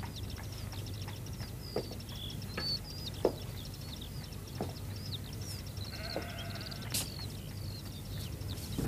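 Farmyard sounds: a sheep bleating, with small birds chirping throughout and a few sharp knocks.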